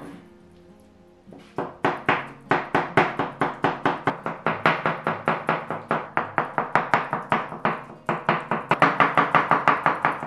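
Chef's knife chopping soft cooked eggplant on a wooden cutting board in quick, even strokes, about five a second, starting about a second and a half in, with a short pause near the end, over quiet background music.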